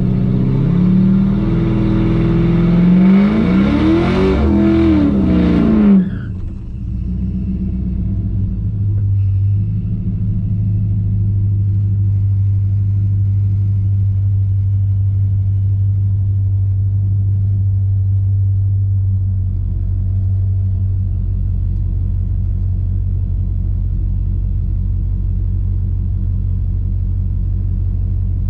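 Stock 6.0-litre LQ4 V8 heard from inside the truck's cab, revving hard up and down for about the first six seconds. It then drops suddenly to a steady low idle rumble that runs on.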